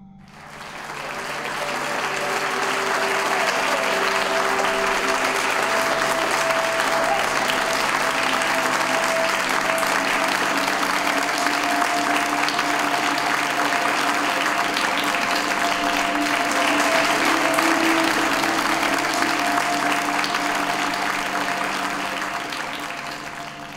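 Audience applauding, swelling in over the first two seconds and easing off near the end, with music holding steady sustained tones underneath.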